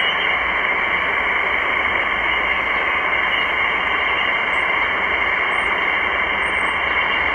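Steady shortwave receiver hiss in upper-sideband mode: band noise from a Malachite DSP SDR tuned to the 20-meter amateur band, with no voice coming through.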